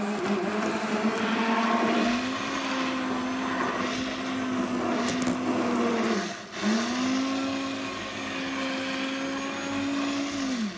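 Electric hand blender running in a saucepan of cooked pumpkin soup, pureeing it smooth. Its motor winds down about six seconds in, starts again a moment later, and winds down once more near the end.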